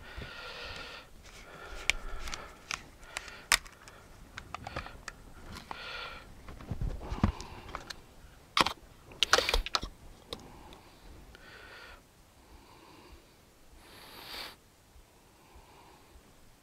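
Clicks, knocks and scrapes of a plastic quart bottle of motor oil being handled and its cap opened, with the sharpest clicks about halfway through.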